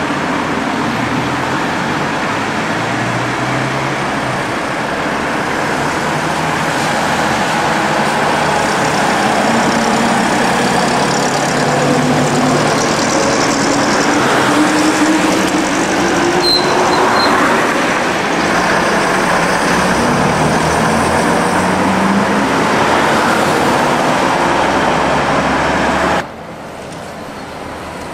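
Vintage bus diesel engines and other heavy vehicles running along a street, with the engine note rising several times as they pull through the gears. The sound drops abruptly to a quieter level near the end.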